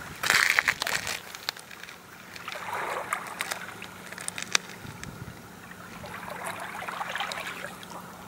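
Small wavelets of the calm Baltic Sea lapping and trickling among shoreline rocks, with little splashes and drips. The lapping swells and fades every few seconds.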